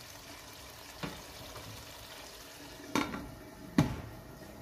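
Onion-tomato masala sizzling as it fries in oil in a deep pot, with a wooden spatula knocking once against the pot about a second in. Two louder knocks follow about three and four seconds in, the last as a glass lid is set on the pot.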